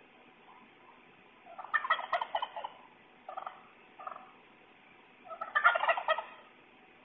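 Wild turkey tom gobbling twice, each gobble a rapid rattling call about a second long, with two short calls between them, heard through an outdoor security camera's microphone.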